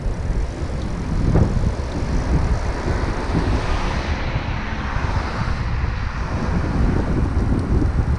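Steady wind noise rumbling on a moving camera's microphone during the ride, with no voices.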